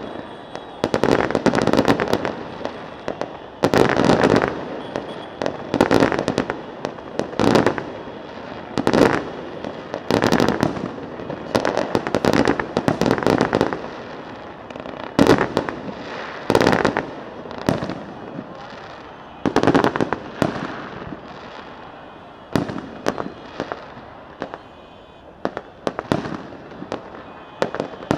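Fireworks display: aerial shells bursting in a rapid, irregular series of loud bangs, thinning out somewhat in the last few seconds.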